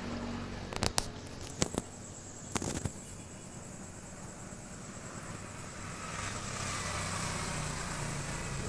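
Typhoon wind blowing in a steady rush, with several sharp knocks in the first three seconds; the rush grows louder about six seconds in.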